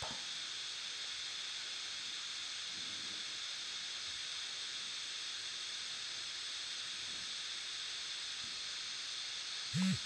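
Steady background hiss with no distinct sound in it: room tone.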